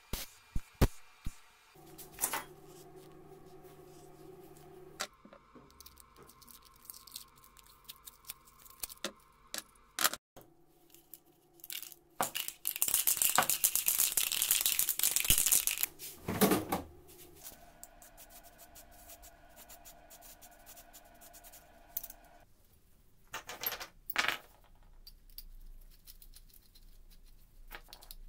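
Steel tube parts and nuts clinking against a steel worktable, then a spray-paint can rattling with sharp clicks before it sprays with a steady hiss for about three seconds, the loudest sound. A few knocks come near the end.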